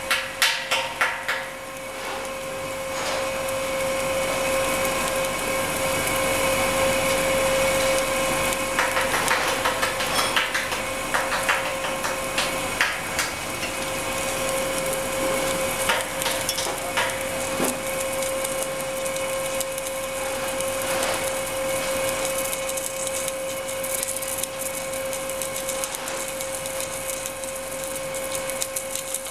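Pipe-welding machinery running with a steady hum and a constant tone. A quick run of ticking clicks ends about a second and a half in, and scattered clicks and rattles follow.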